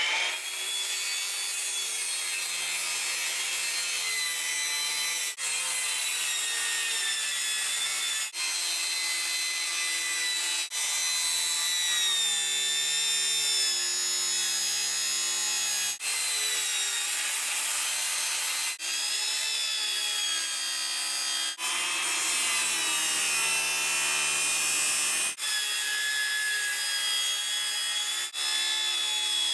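Corded circular saw cutting a light-coloured sheet panel, run backwards along a scribe line, with a blade that is really dull. The motor's pitch wavers as the blade loads and eases, with brief drops in the sound every few seconds through the cut.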